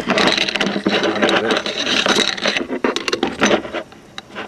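Greased metal mainspring barrel cups of a Columbia Grafonola clockwork motor scraping and knocking against each other as they are handled, with many small clicks. It quietens shortly before the end.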